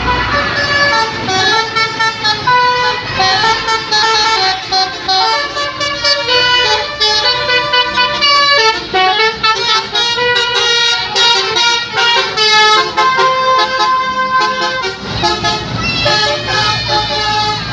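Basuri telolet horn on a tour bus playing a tune: a quick run of horn notes stepping up and down in pitch.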